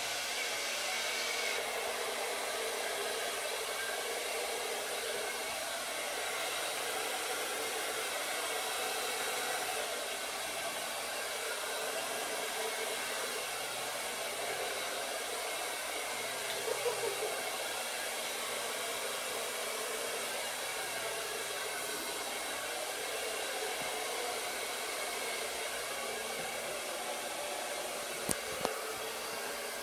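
Handheld hair dryer blowing steadily, pushing wet acrylic paint outward in a Dutch pour. A couple of brief knocks come near the end.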